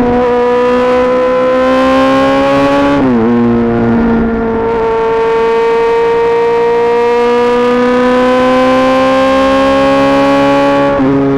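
Yamaha XJ6 S's 600 cc inline-four running through an SC-Project aftermarket exhaust under acceleration. The engine note rises steadily, drops sharply at an upshift about three seconds in, then climbs slowly again until a second upshift near the end.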